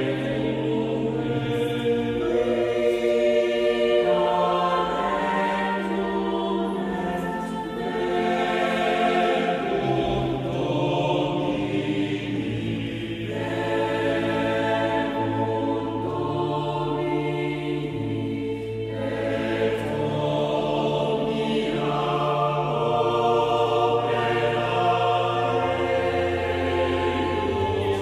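Mixed choir singing Baroque choral music in slow, sustained chords that shift every second or two.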